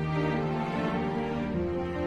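Soft background score music: sustained notes that shift to a new chord about one and a half seconds in.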